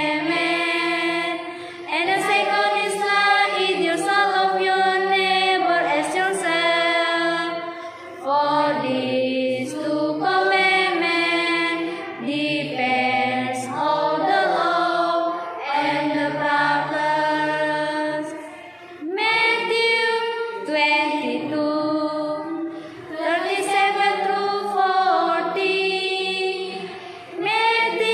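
A small group of teenage students singing a scripture song together, girls' and boys' voices, unaccompanied, with short pauses for breath between phrases.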